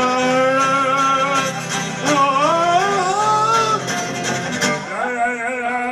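A man singing with a strummed acoustic guitar: a long held note, then a wavering, bending sung phrase, then another held note near the end.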